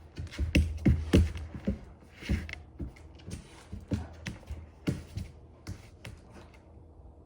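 A chocolate Labrador's claws and paws clicking and tapping on a hard floor as it walks, quick irregular steps that thin out and stop about six seconds in. A low hum sits under the first few seconds.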